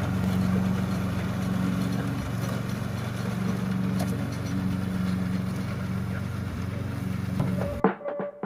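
Riding lawn mower engine running steadily with an even hum. Near the end it cuts off abruptly and music with drum hits takes over.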